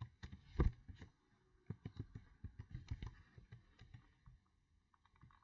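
Faint computer keyboard typing: keys tapped in a quick, irregular run as a username and then a numeric password are entered, the taps thinning out near the end.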